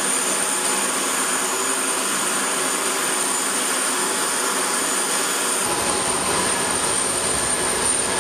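Steady jet whine and rushing air noise from aircraft running on a flight line, with a constant high-pitched tone over it. A deeper rumble joins about six seconds in.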